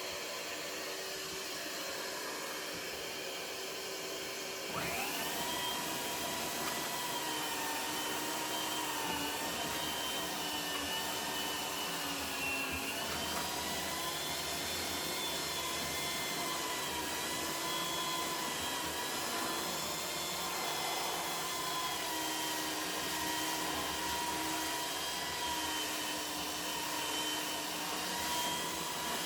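Henry household vacuum running steadily, hooked to a belt sander's dust port, joined about five seconds in by a Jellas 750-watt belt sander starting up. The sander then runs on with an 80-grit belt, its whine wavering slightly as it takes load sanding the painted finish off skirting board.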